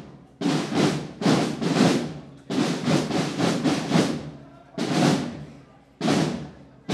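Drums beaten in loud strokes, each ringing out for about half a second, coming in uneven groups of two to five.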